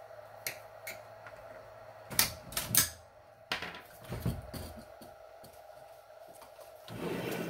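Plastic clicks and clacks as the snap-in tabs of a DVD recorder/VCR's front panel are pried loose and the panel is handled. A few light clicks come first, then a quick cluster of sharper clacks about two seconds in and a few more knocks, then a brief scrape near the end.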